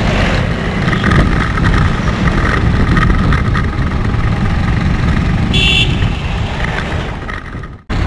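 Motorcycle riding at speed: wind buffeting the microphone over the running engine. A short high-pitched tone sounds a little past halfway, and the sound cuts out abruptly for a moment near the end.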